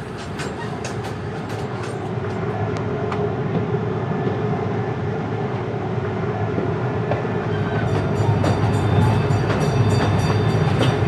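Miniature train running along its track: a steady rumble of wheels on rail with a held tone and scattered clicks over the rail joints. It grows gradually louder through the second half.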